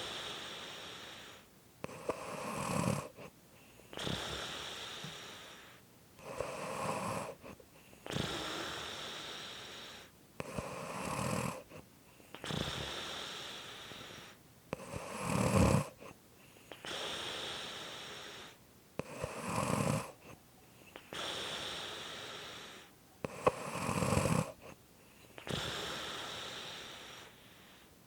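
A person snoring steadily and slowly. A rattling snore comes about every four seconds, six in all, and each is followed by a long, breathy hiss that fades.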